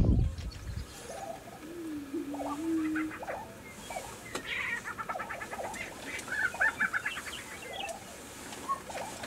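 Lesser prairie chickens calling on a lek: a low wavering display note, short clucking calls and two spells of rapid chattering cackles. A burst of low rumble dies away in the first second.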